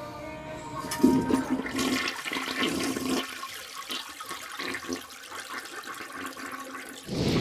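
Toilet flushing: a sudden loud rush of water starting about a second in, gurgling and dying away near the end.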